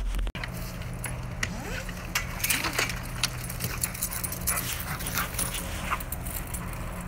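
Dogs whining, with clinks and rattles from a chain-link kennel gate and a leash, over a steady low hum.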